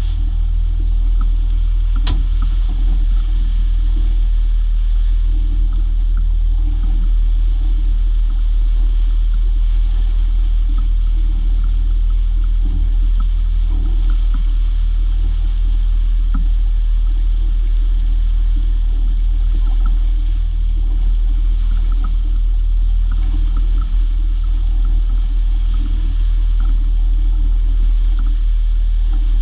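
Single outboard motor running steadily with the boat under way, under a heavy low rumble of wind on the microphone and the hiss of the wake. One sharp click about two seconds in.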